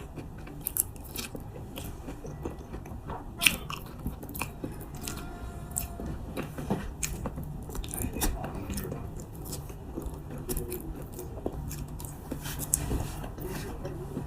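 A person chewing durian flesh close to the microphone, with frequent small mouth clicks and smacks throughout and one sharper click about three and a half seconds in.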